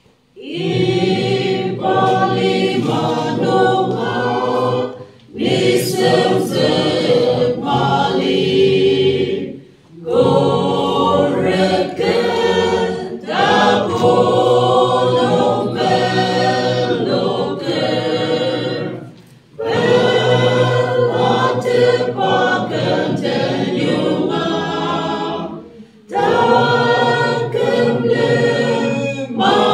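Mixed choir of women's and men's voices singing unaccompanied, in long phrases broken by four short pauses for breath.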